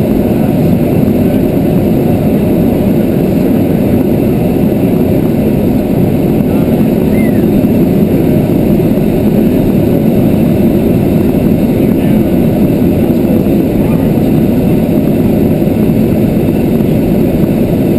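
Steady, loud drone of engine and airflow heard inside a small aircraft's cockpit in flight.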